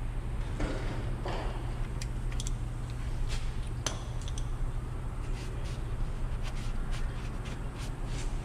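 Scattered light metallic clicks and clinks of a ratchet and hand tools being handled, over a steady low hum.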